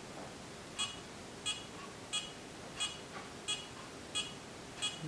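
Tria Beauty at-home hair removal laser beeping as it is held against the skin at treatment level 2: seven short high beeps, evenly spaced about two-thirds of a second apart, starting about a second in. The beeping runs while the treatment is under way and ends when it is finished.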